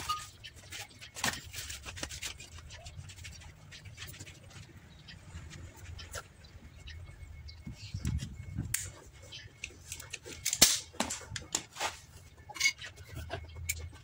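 Metal parts of a rear drum brake being handled: scattered clicks and clinks as the brake shoes and their springs are worked off the backing plate, with one sharper knock past the middle, over a low steady rumble.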